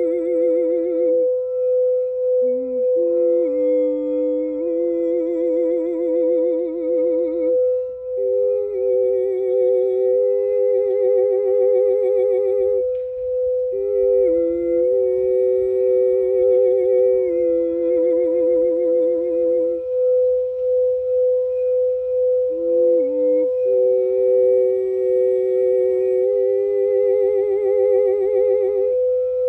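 A singing bowl rings on one steady tone with a slow pulse, for crown chakra toning. Under it a voice hums long wavering notes, changing pitch every few seconds with short pauses between.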